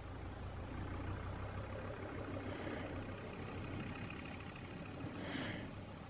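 A low steady rumble, heaviest in the first two seconds, with a short higher-pitched sound about five seconds in.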